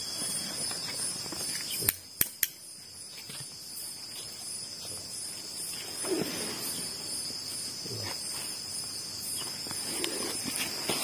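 Night-time crickets chirping in a steady high-pitched trill, with three sharp clicks about two seconds in.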